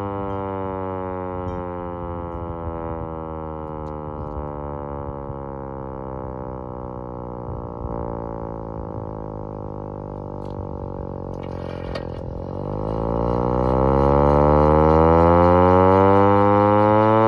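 Vixen Horns VXS-1200M hand-crank siren winding down, its wail sliding slowly lower for about twelve seconds, then cranked back up so the pitch climbs and the sound grows louder. A few clicks come just before it picks up again.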